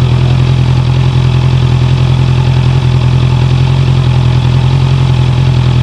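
Honda CB650F inline-four motorcycle engine running at a steady pitch. The bike has just started making a clattering (gacha-gacha) noise.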